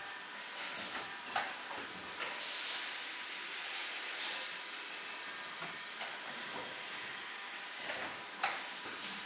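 Workshop noise at a metal-forming press in an aluminium cookware plant: a steady hiss, broken by short loud hissing bursts, the loudest about four seconds in. A few sharp metallic clicks and knocks come as aluminium discs are handled at the press.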